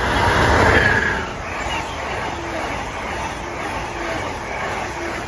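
Amtrak Northeast Regional passenger train passing at speed: a loud rush of wheel and air noise, loudest about a second in, then a steady rumble as the cars go by.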